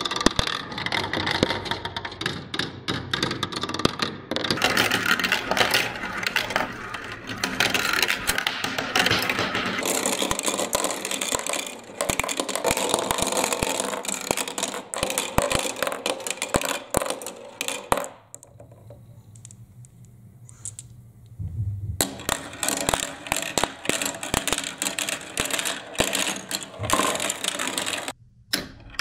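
Glass marbles rolling and clattering down a plastic marble run: a dense, uneven stream of clicks and rattles as they knock against the track pieces and drop into a catch tray. It falls to a quieter rolling for a few seconds about two-thirds of the way through.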